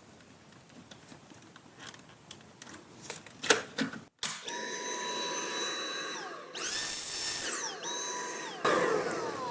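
A few light plastic clicks, then a Dyson cordless stick vacuum's motor starts about four seconds in with a steady whine. It jumps to a louder, higher whine for about a second, drops back, and winds down with a falling whine near the end. It is being run to test the freshly refitted dust bin.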